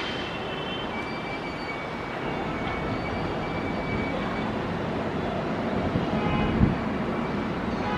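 Steady jet noise from a Boeing 777-300ER's GE90 engines as the airliner rolls along the runway, heard from a distance, with a faint high turbine whine.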